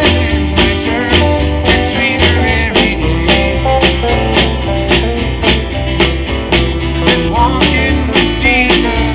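Live country-gospel band music: acoustic-electric guitar, bass and a drum kit keeping a steady beat, with a wavering melody line on top.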